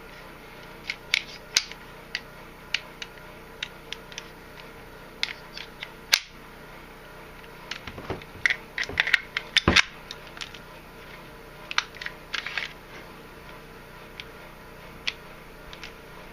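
Small metal clicks and clacks of a Ruger Mark III .22 pistol's parts being handled during reassembly, as the mainspring housing is worked toward shutting. The clicks are scattered and irregular, with a busier run of them about halfway through.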